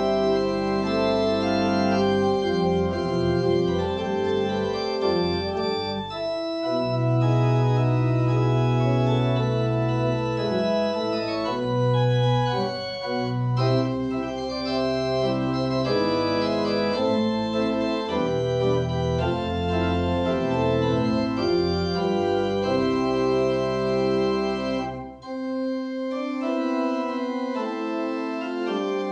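Organ playing a postlude: full sustained chords over deep bass pedal notes. Near the end the bass drops away and the chords thin out for a few seconds.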